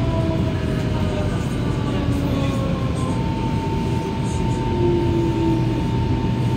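Metro train running, heard inside the car: a steady low rumble with the traction motors' whine sliding slowly down in pitch, the sign of the train slowing. A steady whine comes in at about three seconds.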